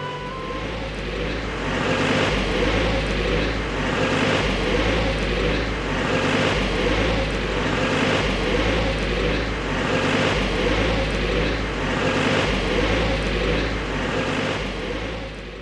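Loud, steady mechanical rumble with a deep low hum, swelling and easing every second or two.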